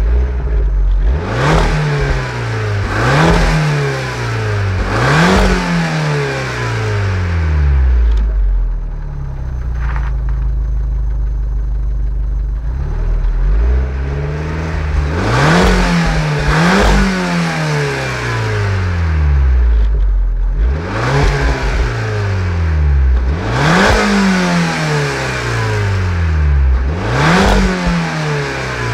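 Alfa Romeo MiTo 1.4 turbo petrol four-cylinder, warm, blipped repeatedly from idle through a twin-tip rear silencer from the 155 hp MiTo. Three quick rev blips, a stretch of steady idle in the middle, then about five more blips.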